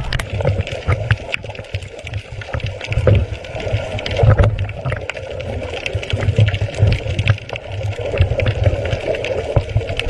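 Muffled underwater sound from a camera underwater: a low rumble of water movement with many scattered short clicks and crackles.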